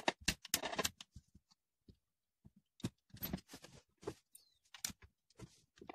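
Faint, irregular clicks and scrapes of a hex key working in the axle screw of a scooter wheel as the screw is tightened, with light handling knocks.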